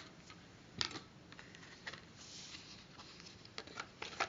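Faint handling noise: a few scattered soft clicks and a brief light rustle against quiet room tone.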